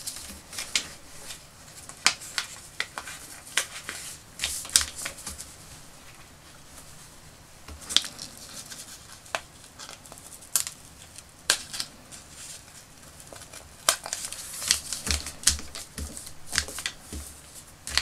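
Handling noises from pinning a paper pattern onto synthetic toy-knit fabric on a cutting mat: scattered small clicks, taps and paper rustles at an irregular pace, busier near the end as the hands smooth the fabric and pattern flat.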